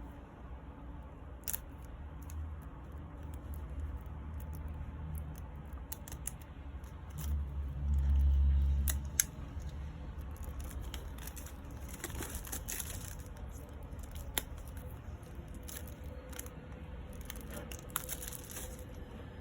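A CD package being unwrapped and handled: plastic wrapping tears and crinkles, with scattered sharp clicks and a low rumbling bump about eight seconds in.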